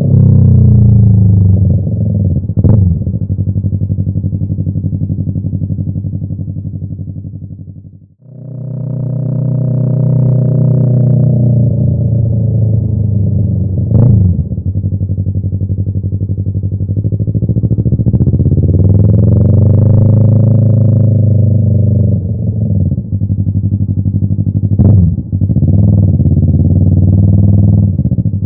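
Yamaha YZF-R3's parallel-twin engine through an M4 aftermarket exhaust, heard onboard while riding: engine pitch falling as it slows, then rising and falling with the throttle through the gears, with a few short sharp blips. The sound dips away almost to nothing about eight seconds in and comes straight back.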